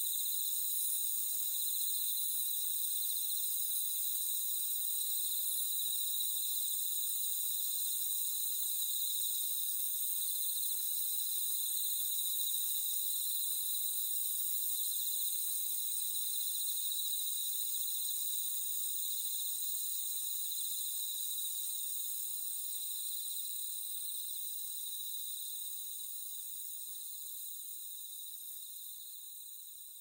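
A chorus of autumn insects, crickets among them, trilling on without a break at several high pitches layered together. It fades out over the last several seconds.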